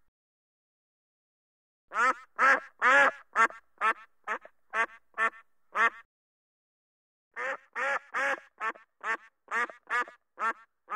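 Mallard ducks quacking: a quick run of about ten loud quacks starting about two seconds in, a short pause, then a second run of quacks.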